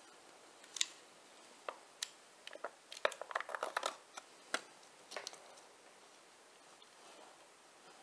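Thin plastic deli cup and its snap-on lid being handled and pried open: a run of sharp clicks and crinkles, densest about three to four seconds in.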